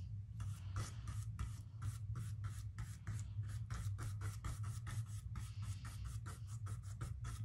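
Flat paintbrush scrubbing acrylic paint onto a canvas in quick crisscross X strokes, about four or five brush strokes a second, over a low steady hum.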